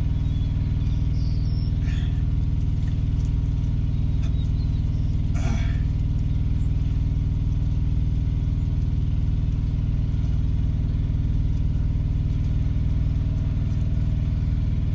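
Peterbilt 389 semi truck's diesel engine idling steadily, heard from inside the cab as a constant low hum.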